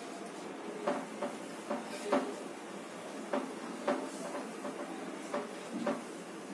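Whiteboard eraser wiped back and forth across a whiteboard: a run of short, uneven rubbing strokes, a few a second.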